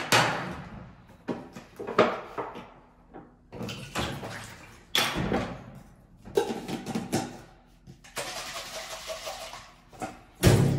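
A plastic shaker cup and its screw lid being handled at a steel sink, with a string of knocks and clatters. About eight seconds in, about two seconds of running water, then a loud thud near the end.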